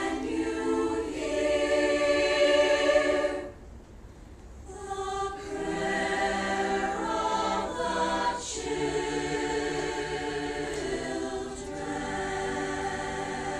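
Mixed choir of young voices singing: a held chord, a break of about a second, then the singing resumes in several parts.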